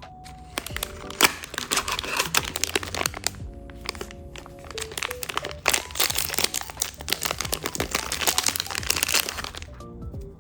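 Plastic packaging crinkling and crackling as it is handled and opened, in two long spells with a short pause between, over soft background music.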